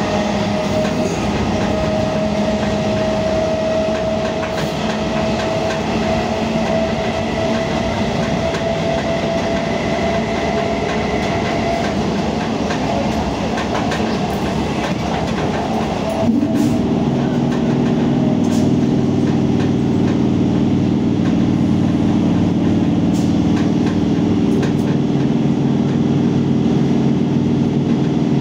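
Electric local train's traction motors whining with a slowly rising pitch as the train accelerates, over wheel and rail noise with some clacking. About two-thirds of the way through, the whine stops abruptly and a louder, steadier low hum takes over.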